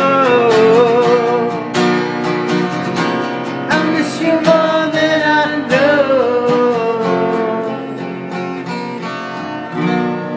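Music: a song's instrumental ending, strummed acoustic guitar under a held, gliding melody line, easing a little quieter toward the end.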